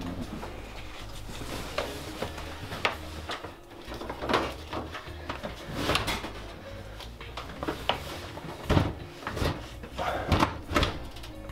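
Irregular clicks, clunks and light rattles of an RV microwave's panels and door being handled and refitted after a door micro switch was replaced.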